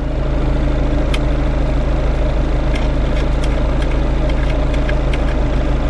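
Car engine idling steadily, heard from inside the cabin, with a few light clicks as a cable terminal is fastened onto a power inverter's post.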